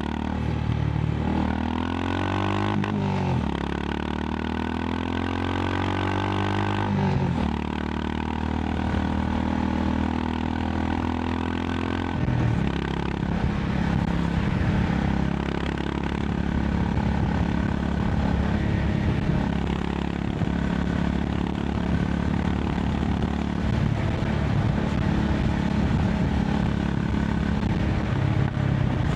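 Honda CB350 RS's single-cylinder engine pulling up through the gears, its pitch rising and dropping at a shift about three seconds in and again around seven seconds, then settling into a steady highway cruise after about twelve seconds. Wind and road noise run underneath.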